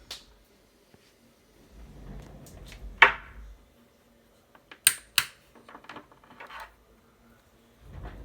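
Home-built mechanical ventilator cycling: a motor runs for about two seconds and ends in a sharp click, then two quick clicks and some lighter rattling follow, and the motor run starts again near the end. A faint steady hum sits underneath.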